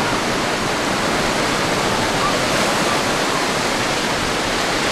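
Surf breaking on a beach: a steady, unbroken rush of waves and churning white water.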